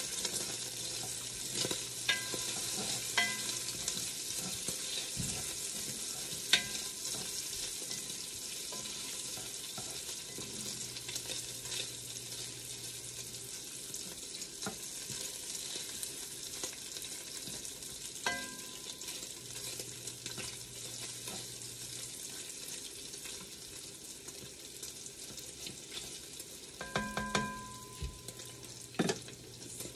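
Bacon pieces sizzling steadily as they fry in an enameled cast iron Dutch oven. Now and then a cooking spoon clicks and scrapes against the pot as the bacon is stirred, with a short cluster of knocks near the end.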